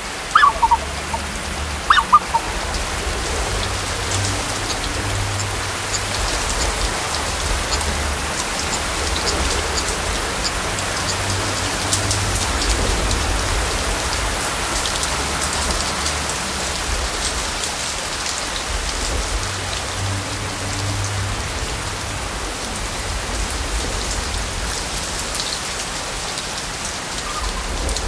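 Steady rain falling in a wetland forest, a field recording with a dense patter of drops and a low rumble underneath that swells and eases. A couple of short bird chirps come through in the first two seconds.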